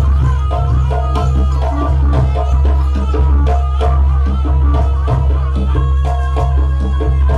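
Jaranan troupe music: drums and struck percussion under a melodic line of short repeated notes, playing steadily and loud with a heavy low hum beneath.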